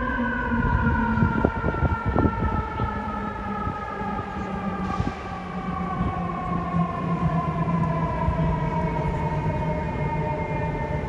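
Fire truck siren slowly winding down, its pitch falling steadily throughout, over a low steady drone, with a few short knocks about two seconds in.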